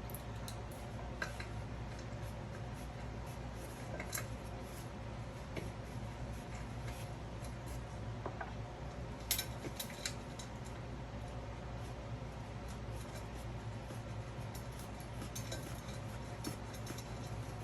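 Scattered light metallic clicks and clinks of stainless bolts, washers and hand tools as case-brace bolts are threaded in by hand, over a steady low background hum.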